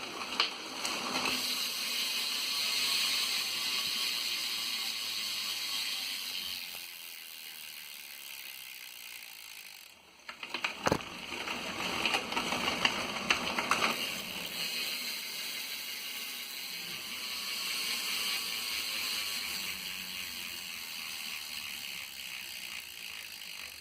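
BMX rear hub freewheeling: the pawls click in a fast, continuous ratcheting buzz as the wheel spins and coasts, slowing gradually. The spin stops about ten seconds in and the wheel is spun again, with a few sharper clicks, then coasts on.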